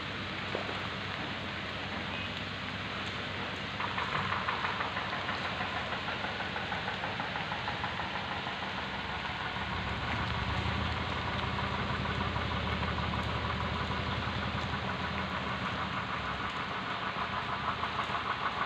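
Steady rain hiss, with an engine running from about four seconds in, a regular pulsing beat that grows a little stronger in the middle.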